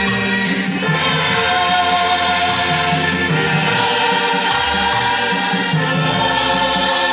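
A gospel choir singing in harmony over a steady bass line.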